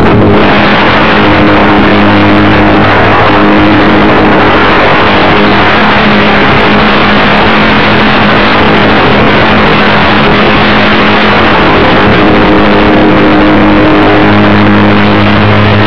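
Motor and propeller of an RC model airplane heard from a camera on board, under a loud, constant rush of wind on the microphone. A steady low hum runs beneath it and changes pitch a few times.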